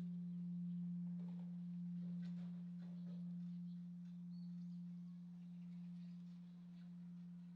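Korean bronze temple bell (beomjong) humming as it dies away after a strike: one low steady tone that slowly wavers in loudness and fades.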